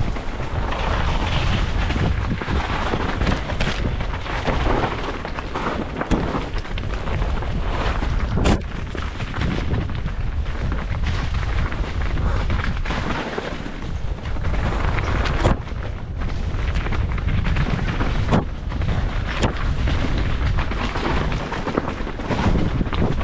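Mountain bike riding fast down a dirt and leaf-litter forest trail, heard from a camera on the rider: a steady rumble of wind buffeting the microphone and tyres on the ground, with a few sharp knocks as the bike hits roots and bumps.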